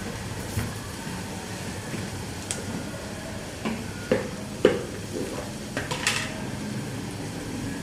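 Plastic spice box being handled: a few sharp clicks and knocks as it is set down and its lid is pulled off, the loudest a little past halfway.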